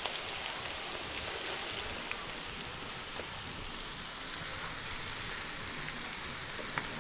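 Battered fritters deep-frying in hot oil in a large two-handled wok: a steady sizzle with scattered small pops.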